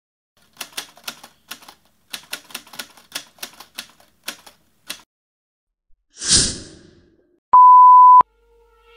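Intro sound effects: a run of typewriter key strikes, about twenty clacks, then a short burst of noise that fades away, then a steady high beep of a TV test tone lasting about half a second.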